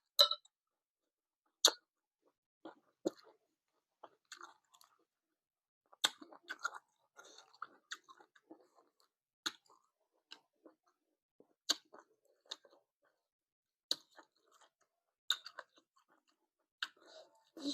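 Close-miked chewing of green papaya salad: irregular crunches and wet mouth clicks, a few every couple of seconds.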